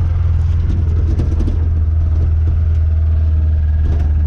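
Motor vehicle engine running steadily with a low drone, with light clicks and rattles over it.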